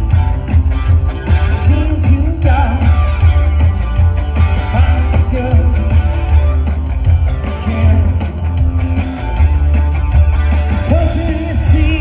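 A live rock band playing a post-punk song over a heavy, steady bass line, with a voice singing.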